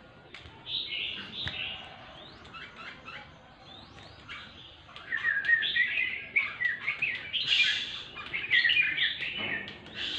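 A songbird chirping and singing in quick, varied phrases, a few notes at first and then a busier, louder run of song in the second half.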